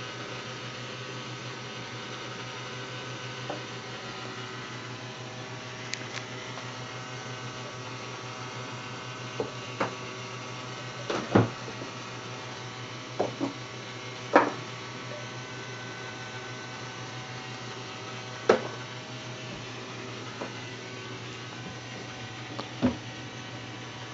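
Light knocks and taps on a wooden cat tree's hunting platform, about a dozen at irregular intervals, as toy mice are put into its holes and a cat paws at them. Under them runs a steady low electrical hum.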